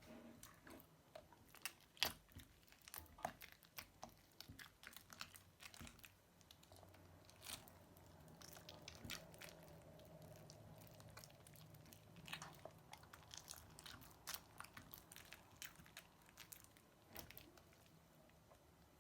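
Crunchy slime being squeezed and worked by hand, giving irregular soft crackles and pops, denser in the first few seconds and again later on.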